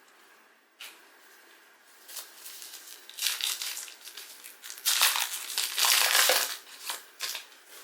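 Trading card pack wrapper being torn open and crumpled by hand, in irregular bursts of crinkling that are loudest about five to six and a half seconds in.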